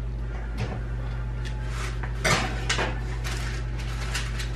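A baking pan being slid into an oven, metal clanking against the oven rack and door in a few sharp knocks, the loudest about two seconds in.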